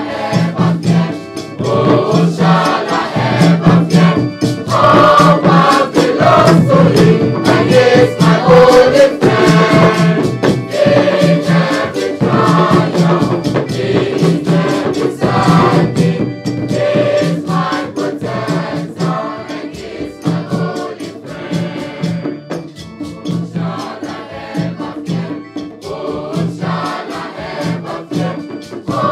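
A school choir of boys' and girls' voices singing a gospel song together, over a steady beat of hand drums.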